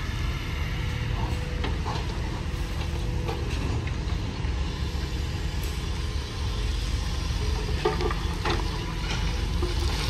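Diesel engines of heavy construction machinery running with a steady low rumble, with a few short clanks, two of them close together near the end.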